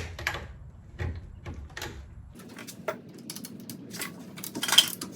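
Click-type torque wrench ratcheting as wheel lug nuts are tightened to 100 foot-pounds. There are a few separate clicks first, then a fast run of ratchet clicks in the second half, with one louder click near the end.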